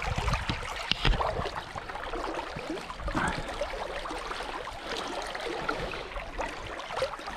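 River current flowing over shallow rocks, a steady babble, with a few low knocks in the first second.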